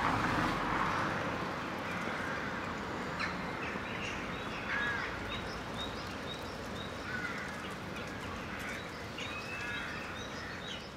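Outdoor bird sounds: crows cawing a few times over a steady background rush, with a small bird chirping high and repeatedly.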